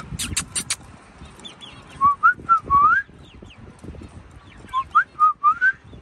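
A loud whistled phrase of four short notes, several of them rising, given twice about three seconds apart. Before it come a few quick, very high squeaks.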